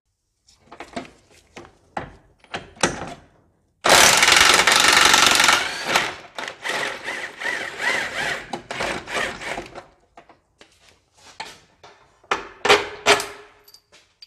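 Cordless impact wrench hammering an engine mount bolt loose on a Honda CR-X: a loud two-second burst of hammering about four seconds in, then lighter, uneven hammering for a few more seconds as the bolt runs out. Scattered knocks and clanks come before it, with two sharp knocks near the end.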